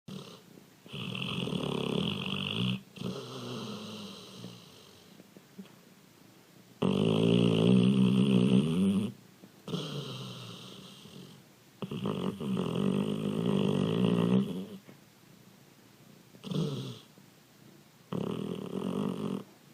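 A sleeping dog snoring: four long, loud snores, each two to three seconds, and one short one, a few seconds apart, with softer breaths between them.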